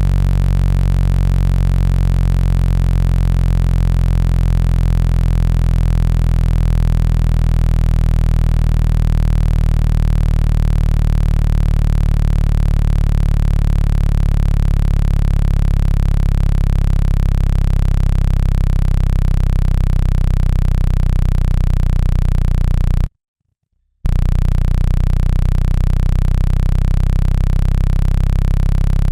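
Loud, low-pitched electronic buzz: a synthesized tone with many overtones, played to vibrate water out of a phone speaker. It cuts out completely for about a second roughly three-quarters of the way through, then resumes.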